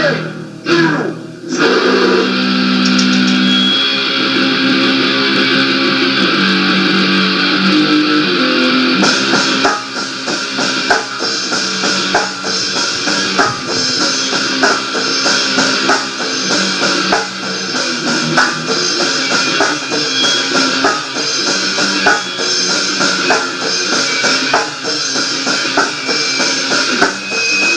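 Rock band recording: guitar chords ring out alone for about nine seconds, then the drum kit and bass come in with a steady beat under the guitar.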